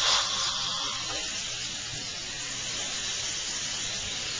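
Dental suction tube hissing steadily as it draws air in the patient's mouth, with a louder rush of air in the first half second from the air-drying of the tooth.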